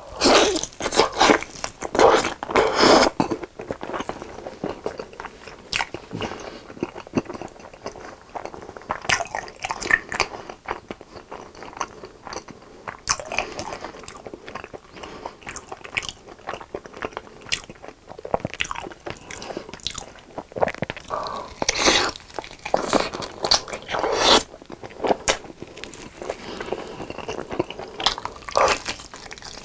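Close-miked biting and chewing of a sauced chicken drumstick: a run of loud bites into the meat near the start, then wet chewing with scattered crunches, and another loud cluster of bites about two-thirds of the way through.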